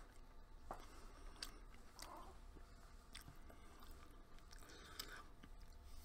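Faint chewing of a mouthful of bacon beef burger on a bread roll, with soft mouth clicks now and then.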